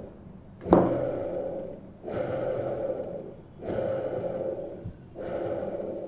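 Washing-machine universal motor spun by hand at its pulley, four times. Each flick sets the armature whirring, and it then coasts down and fades.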